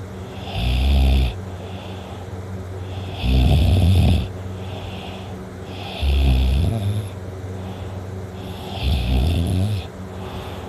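Teenage boy snoring loudly in deep sleep: four heavy snores, each lasting about a second and coming roughly every three seconds.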